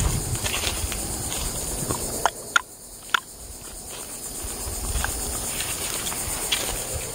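A handful of sharp clicks: the two loudest come close together about two and a half seconds in, with more at about three and five seconds. Under them runs a steady high drone of insects, and a low rumble fades out just before the first click.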